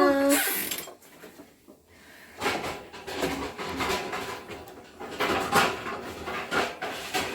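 Kitchenware being handled, clattering and knocking irregularly for the last few seconds.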